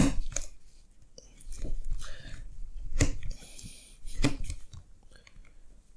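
A blade cutting through a hydraulic brake hose: short crunching cuts with a few sharp clicks, as the hose end is trimmed straight.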